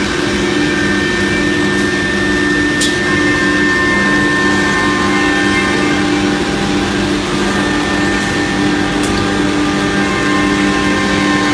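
K5 CNC router with a 6 kW HSD spindle running, a steady machine drone with several held tones. Two short high clicks sound about 3 and 9 seconds in.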